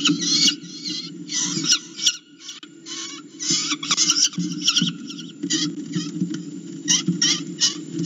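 A live prey bird screaming in distress as a peregrine falcon chick chases it: harsh, high calls repeated in quick runs, several a second, with short pauses between runs.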